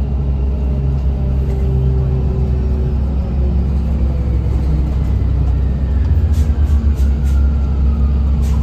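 Interior ride noise of a 2007 Orion VII hybrid-electric city bus: a steady low drivetrain and road rumble, with a faint electric whine from the hybrid drive falling in pitch through the second half. A few short rattles come about six to seven seconds in.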